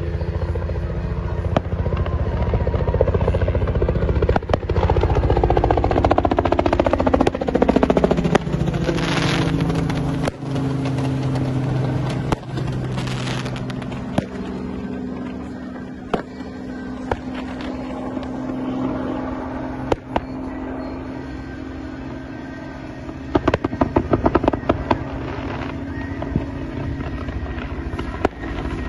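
Helicopter rotor and engine running as it flies past, the pitch falling as it goes by a few seconds in and then holding steady. Fireworks mounted on the helicopter hiss and crack over it, with a quick run of crackling bangs near the end.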